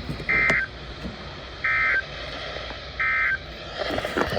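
Emergency Alert System SAME data bursts from NOAA Weather Radio, three short identical warbling bursts about a second and a half apart: the end-of-message code closing a flash flood warning. Steady radio hiss underneath.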